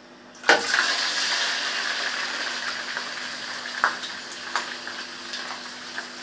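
Finely diced goat liver tipped into hot oil in a frying pan, bursting into a sizzle about half a second in that slowly settles down. A few light clicks of a utensil against the pan.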